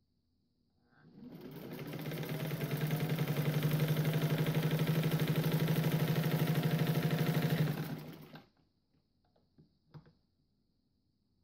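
Freshly cleaned 1931 Singer 15-91 sewing machine, driven by its built-in potted motor, sewing through cloth. It speeds up about a second in, runs with a fast, even stitch rhythm for several seconds, then slows and stops. A few small clicks follow near the end.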